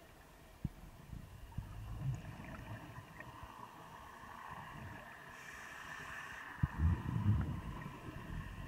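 Muffled underwater sound through a camera's waterproof housing: a scuba diver's exhaled regulator bubbles rumbling and gurgling in two bursts, about two seconds in and again near the end, over a steady low hiss, with a few faint knocks.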